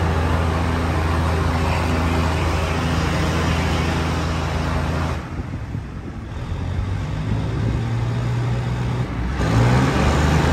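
Thai RHN diesel railcar heard from inside the carriage while underway: a steady engine drone with running noise. The noise drops quieter about halfway through, and near the end the engine note rises as the full noise comes back.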